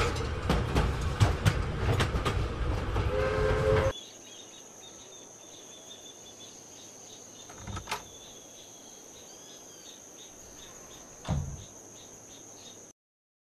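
Steam locomotive arriving in a station: loud hissing and clanking with its whistle sounding near the end, then cutting off suddenly about four seconds in. A quiet ambience follows: a steady high whine and a few faint chirps, with two soft low thumps.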